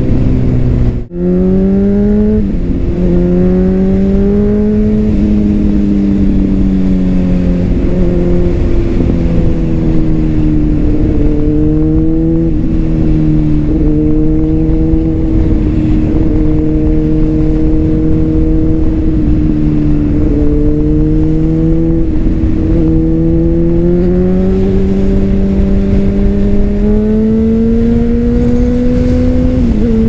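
2009 Honda CBR600RR's inline-four engine with a Leo Vince exhaust, running under way: the engine note climbs slowly and drops back several times with the throttle. The sound dips briefly about a second in.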